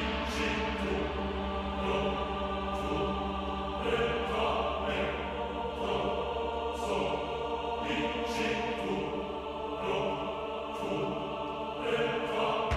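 Background music: sustained choir-like chords over a steady low drone, with light ticks scattered through.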